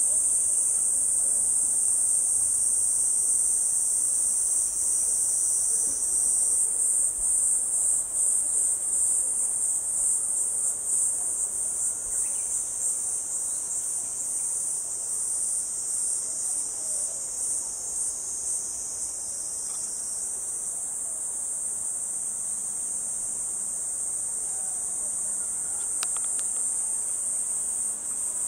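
Steady, high-pitched chorus of insects singing, pulsing rapidly for several seconds in the first half before evening out again.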